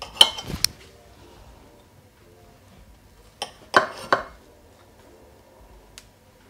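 Kitchen utensils knocking and clinking against crockery in two short clusters: a few quick knocks right at the start and again about three and a half seconds later, over quiet background music.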